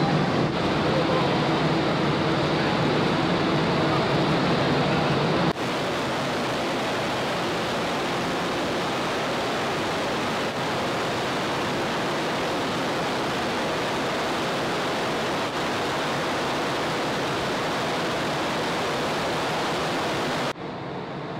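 Steady rushing of wind and sea water around the Ogasawara Maru ferry under way, with a low hum under it for the first five seconds or so. The sound drops abruptly about five seconds in and again near the end.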